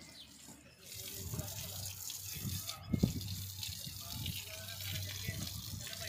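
Water from a hose spraying onto a cow's hide, a steady hiss that starts about a second in, with a low steady hum underneath.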